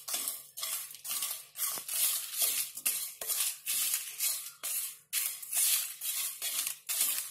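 Wooden spatula stirring whole spices being dry-roasted in a kadhai without oil. It makes a rhythmic dry scraping and rattling of seeds, dried red chillies and cinnamon sticks against the pan, about two to three strokes a second.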